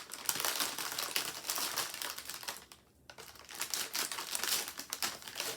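Plastic snack bag of juice gummies crinkling as it is handled and opened, with a short pause about halfway through.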